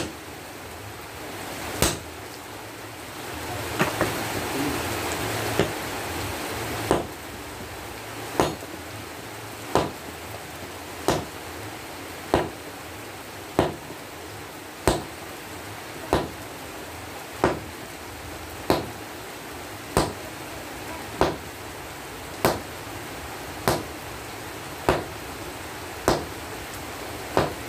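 Sledgehammer blows on red-hot breaker-chisel steel held on an anvil, forging it into a machete blade: a few uneven strikes at first, then steady sharp strikes about one every 1.3 seconds, over a steady rushing background noise.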